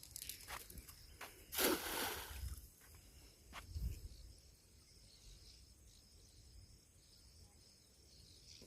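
Quiet outdoor ambience with a faint steady high-pitched drone, a brief burst of noise about a second and a half in, and a few light clicks.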